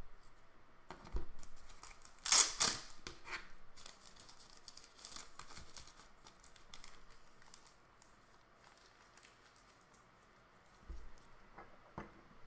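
Foil trading-card pack wrapper being torn open and crinkled, with a few loud sharp rips about two seconds in and lighter crinkling after. A soft knock and a click near the end.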